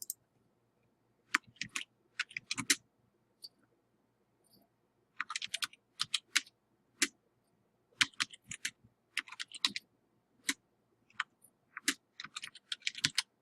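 Computer keyboard typing: sharp key clicks, one at a time and in quick runs, with short pauses between them.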